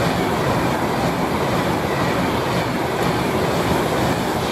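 Class 390 Pendolino electric train going through the station: a steady, loud rush of wheels on rails and air.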